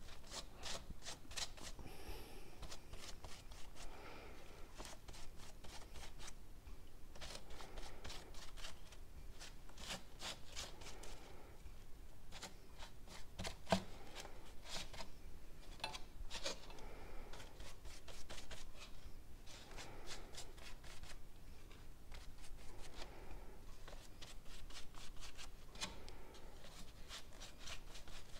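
A paintbrush stroking and dabbing clean water onto a paper towel in a plastic tray, wetting a washable-marker drawing so the colours spread. It comes in runs of quick, short, scratchy strokes with pauses between, and one sharper tap about halfway through.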